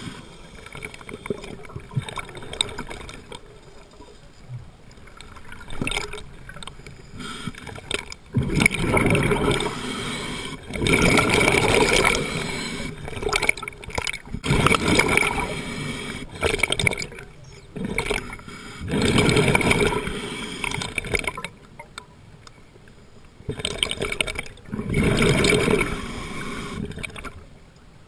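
Scuba regulator exhaust: the diver's exhaled breaths bubbling out in bursts a second or two long, repeating every few seconds, with quieter stretches of inhalation between. The bursts are louder and more regular in the second half.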